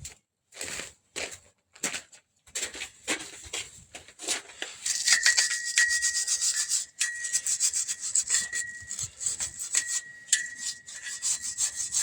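Hand scrubbing on the inside of a KAMAZ truck's steel brake drum: a few separate strokes at first, then fast continuous rubbing from about five seconds in. A steady high ring comes and goes with the strokes.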